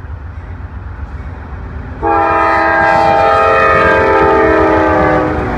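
Diesel locomotive's multi-chime air horn sounding one long chord blast, starting about two seconds in and stopping shortly before the end, over the low rumble of a passing train.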